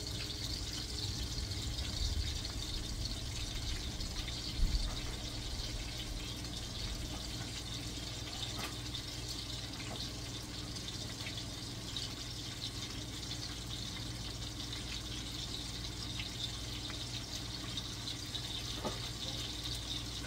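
Sausage links frying slowly in olive oil in a stainless steel skillet: a steady sizzle with faint crackles. A single low thump about four and a half seconds in.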